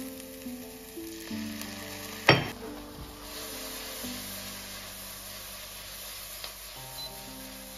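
Diced mushrooms sizzling in a frying pan, the sizzle growing louder from about three seconds in as the pan is tossed, with one sharp knock a little over two seconds in. Soft background music plays throughout.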